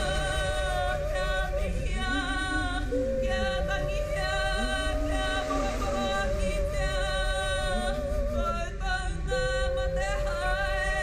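Māori kapa haka performers singing: women's voices holding a long melody with a wide vibrato and a few pitch steps. Beneath it, a lower sound rises and falls in slow arcs about every two seconds.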